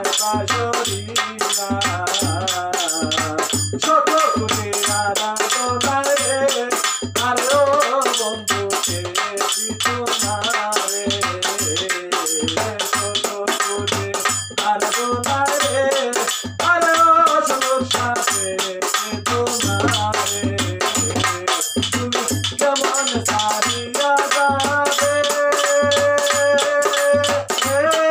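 Bengali folk song: a male voice singing a wavering, ornamented melody into a microphone over a two-headed barrel drum (dhol) beating a steady rhythm and small hand cymbals jingling fast. Near the end the voice holds one long note.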